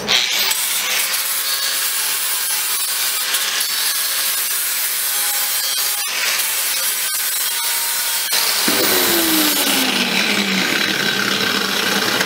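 Milwaukee angle grinder with a 40-grit flap disc grinding the rough welded edge of a steel plate, a steady grinding with a falling tone near the end.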